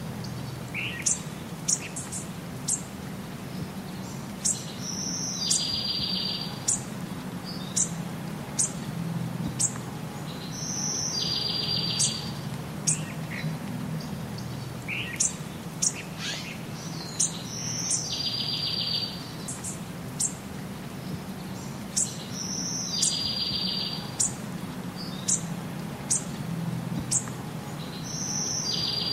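Small birds singing: short, high chirps every second or so, with a short buzzy trill about every six seconds, over a steady low hum.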